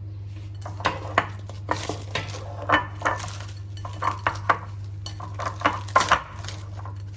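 Dishes and cutlery clinking and clattering: a string of sharp knocks and clinks starting about a second in, over a steady low hum.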